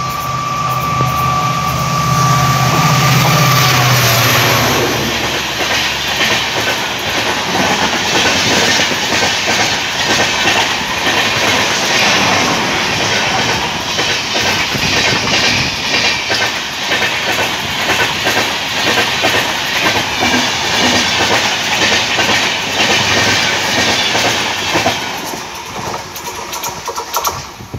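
A diesel locomotive passes at speed with its horn sounding one steady blast over the engine for the first few seconds. Then a rake of LHB passenger coaches rushes by, the wheels clattering in a rapid clickety-clack over the rail joints. The sound fades away near the end.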